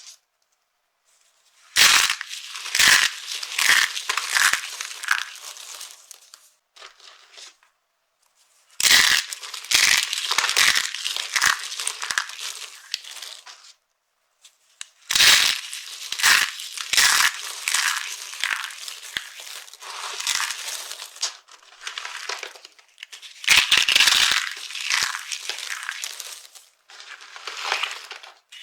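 Dry soap being crushed and crumbled, in four bouts of crisp crackling and crunching, each a few seconds long with short quiet pauses between.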